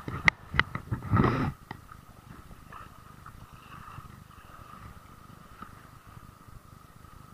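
Shimano FX 2500 spinning reel during a lure retrieve: a few sharp clicks and a short rustling rush in the first second and a half, then a faint steady whine as the reel is cranked.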